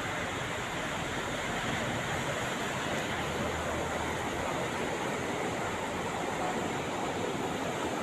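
Floodwater of an overflowing river rushing past in a steady, unbroken noise.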